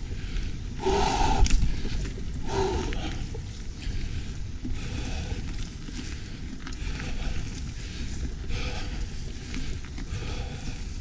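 Mountain bike rolling along a dirt trail, with a steady low rumble of wind and tyres on the camera mic and a few louder swells of noise in the first three seconds.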